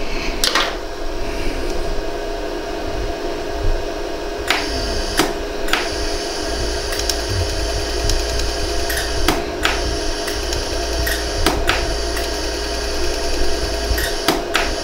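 Pulsed jewelry laser welder firing single shots: about a dozen sharp clicks at irregular intervals as the pulses fuse a repair in a hollow gold earring. A steady machine hum runs underneath.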